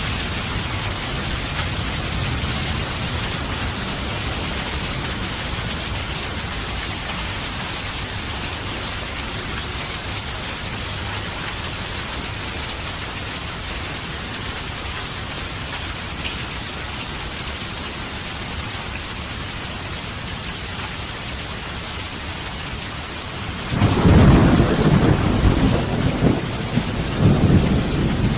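Steady rain falling, with a loud rumble of thunder breaking out near the end and swelling a second time just before it closes.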